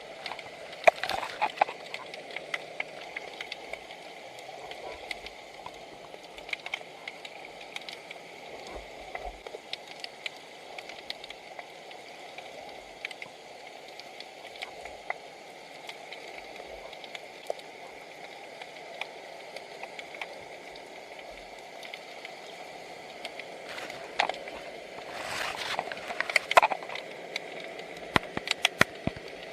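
Underwater sound picked up by a submerged camera: a steady water hiss with scattered sharp clicks and crackles, and louder rushing swells of water about a second in and again near the end.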